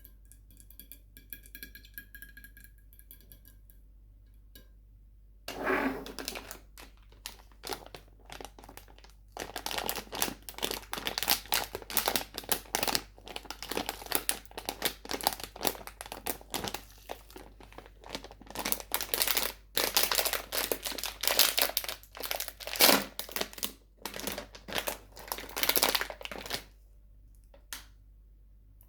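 Plastic sweet wrappers crinkling and rustling in irregular crackles, starting about five seconds in and stopping a couple of seconds before the end.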